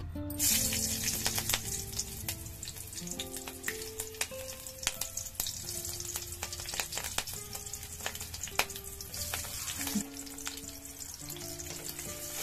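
Slit green chillies hit hot oil in a kadai about half a second in and sizzle, with frequent sharp crackles and pops as the oil spits.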